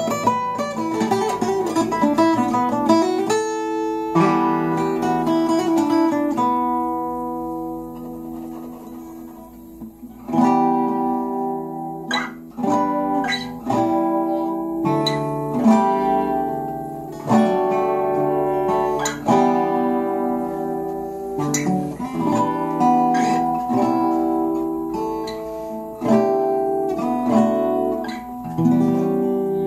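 Two acoustic guitars playing together without singing. First come quick picked notes, then held chords that ring and fade, then single strummed chords struck about every second or two and left to ring out.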